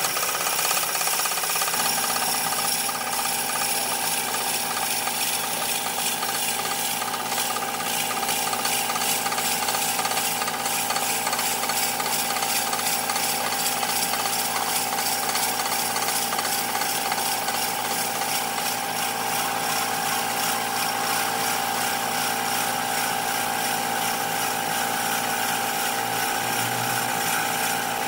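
Wood lathe running: a steady machine hum with a fast, even rattle. Its pitch settles onto steady tones about two seconds in.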